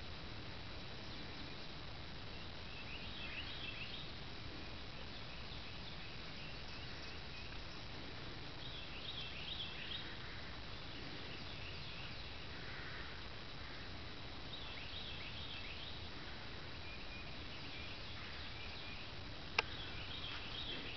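Backyard ambience: a steady background hiss with birds chirping in short bursts every few seconds, and one sharp click near the end.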